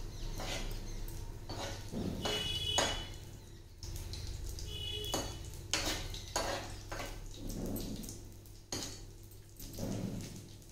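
A metal spoon stirring and scraping in a black iron kadhai, clattering against the pan again and again, with a couple of short metallic rings, as whole spices are stirred in hot oil.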